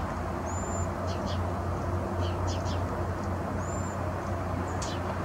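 Outdoor ambience: a steady low hum and rumble, with a few short high chirps, clicks and two brief whistles over it.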